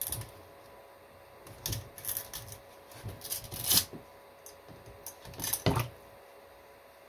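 Intermittent clatter and swishing as a resin 3D printer's build plate, with a freshly printed water-washable resin model still on it, is dunked and moved about in a plastic tub of water to wash it. The noises come in a few short irregular clusters, with quiet between them.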